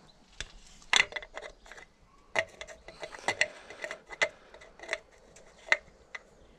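Plastic oil filler cap on a Volvo V70's valve cover being twisted loose by hand, a series of irregular sharp clicks and ticks as it turns. The cap is loosened before the oil change so the old oil drains quicker.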